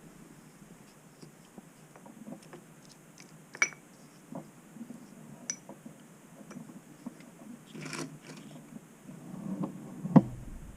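Scattered light clicks and taps of small metal parts and tools being handled on a workbench, with a brief rustle about eight seconds in and a sharper knock just after ten seconds.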